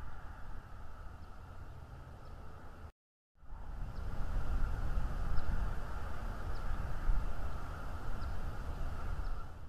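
Wind buffeting an outdoor nest-cam microphone in gusts, over a steady high hiss, with a few faint short high chirps in the second half. The sound cuts out completely for a moment about three seconds in.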